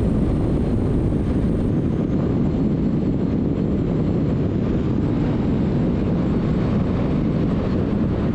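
Harley-Davidson Dyna motorcycle running steadily under way, engine and road noise.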